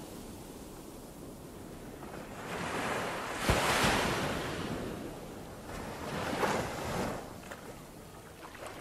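Sea waves breaking and splashing against shoreline rocks. A low, even wash of surf is followed by a big wave crashing with a sharp slap about three and a half seconds in, then a second, smaller surge a few seconds later.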